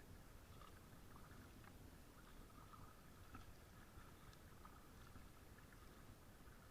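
Near silence: faint outdoor ambience with a low rumble and scattered light ticks.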